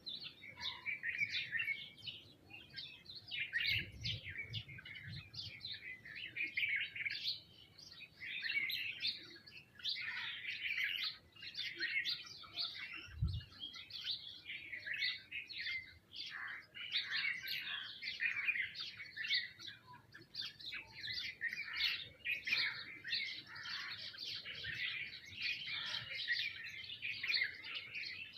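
A feeding flock of sparrows and other small birds chirping nonstop, many calls overlapping. There is a brief low thump about 13 seconds in.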